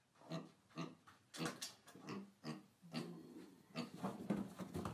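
A small animal making short, low grunting calls, repeated about twice a second.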